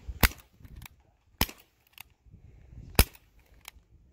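Airsoft guns firing: three sharp shots about a second and a half apart, the last the loudest, with fainter pops between them.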